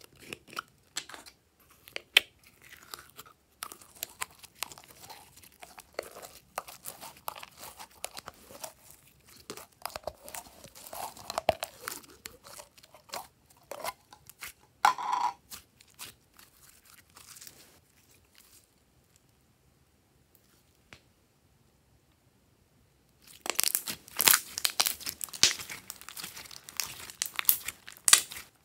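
Red glitter slime worked by hand, squeezed and stretched: a run of sticky clicks and crackles. It goes quiet for a few seconds about two-thirds in, then louder crackling returns as the slime is kneaded.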